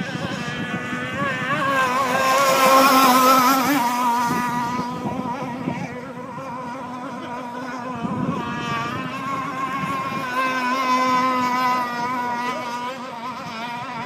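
Hydroplane boat's engine running at speed across the water, its pitch wavering. It is loudest about three seconds in as the boat passes, fades, then swells again around ten to twelve seconds in.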